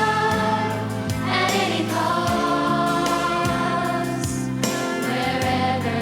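Youth choir singing long held notes over instrumental accompaniment with a steady beat.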